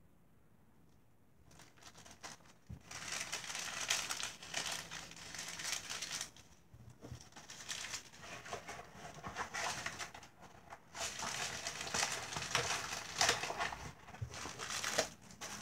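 Small plastic bags and packaging crinkling as they are handled, starting about two seconds in and going on in spells with short pauses.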